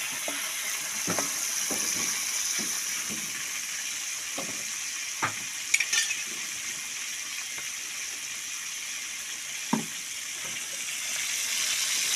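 Salted fish frying in hot oil, giving a steady sizzle. A cooking utensil knocks and scrapes in the pan now and then, with one sharper click about halfway through.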